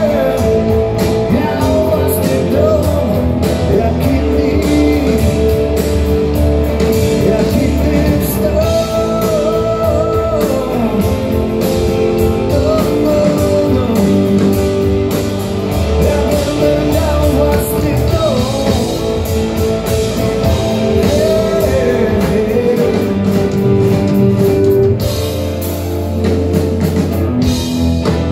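Live blues-rock band playing: a sung lead vocal over electric guitars and a drum kit, heard from the crowd in a concert hall.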